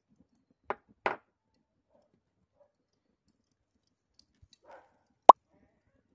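Sparse handling clicks and knocks from a small seasoning jar: two knocks about a second in, a faint rustle near five seconds, then one sharp, louder click.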